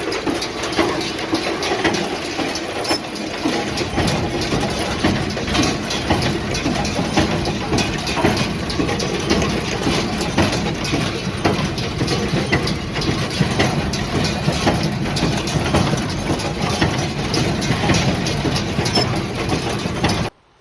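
Ford 860 tractor running with a Massey 10 square baler working behind it, the baler's mechanism knocking repeatedly over the steady engine noise. It cuts off suddenly near the end.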